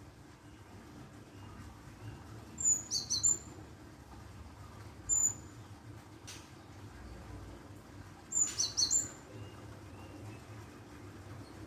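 Gelatik bird calls: short, high chirps in three bursts a few seconds apart, the first and last as quick clusters of several notes and the middle one a single note.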